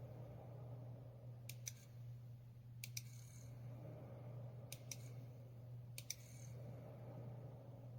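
Faint steady low hum with sharp double clicks repeating about every one and a half seconds, four pairs in all.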